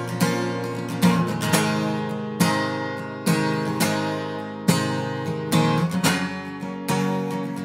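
Acoustic guitar with a capo, strummed in a steady folk rhythm, with ringing chords struck about once a second in an instrumental break with no singing.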